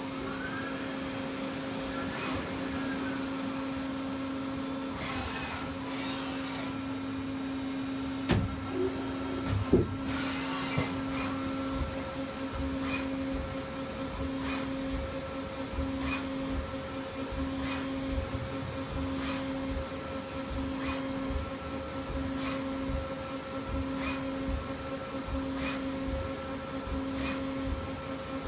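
Hyundai 500L CNC vertical turret lathe running: a steady machine hum, with several loud bursts of hiss in the first eleven seconds, then short regular ticks about every second and a half.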